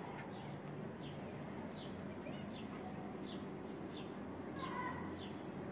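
A bird chirping over and over: short high notes that fall in pitch, about every two-thirds of a second, with a brief lower call about five seconds in. A faint steady hum lies underneath.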